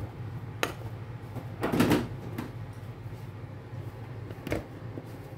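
A few light knocks and clinks from a metal mesh sieve and flour cup against a plastic mixing bowl as flour is sifted, the loudest a short rattle about two seconds in. A steady low hum underneath.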